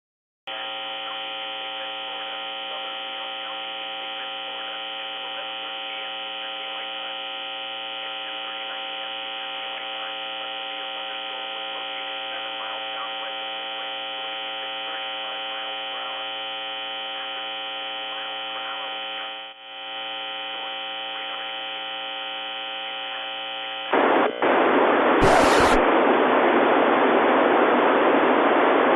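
Steady electrical buzzing hum from a radio receiver, with many overtones, dipping briefly about 19 seconds in. About 24 seconds in it gives way to a louder, steady hiss of radio static, with a brief burst a second or so later.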